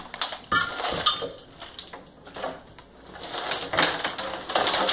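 Ice cubes clinking and rattling as they are tipped from a plastic bucket into a sink's water bath, with scattered sharp clicks at first and a denser clatter in the last couple of seconds.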